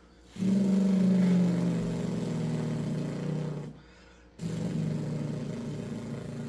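A man imitating a Briggs & Stratton lawnmower engine with his mouth: a buzzing, droning engine note in two long runs, broken by a short pause about four seconds in.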